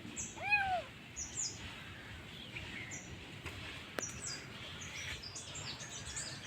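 A kitten gives one short meow, rising then falling in pitch, about half a second in. Birds chirp in short high notes throughout, and there is a single click about four seconds in.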